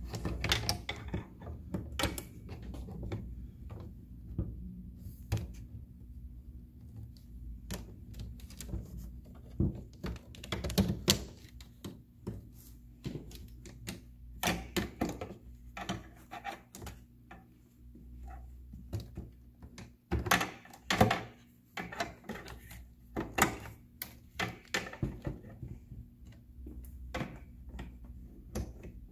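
Hard plastic playset pieces being handled and snapped together: irregular clicks, knocks and snaps, with louder clusters of clicks about ten, fifteen, twenty-one and twenty-four seconds in.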